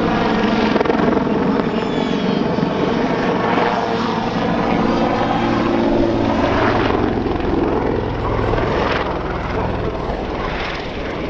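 Westland Lynx twin-turboshaft helicopter flying overhead, with a steady rotor beat and engine whine, growing slightly fainter near the end.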